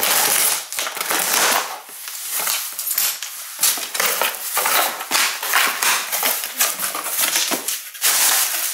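Parcel packaging being torn open and crinkled by hand, a dense run of irregular crackles and rustles that keeps going.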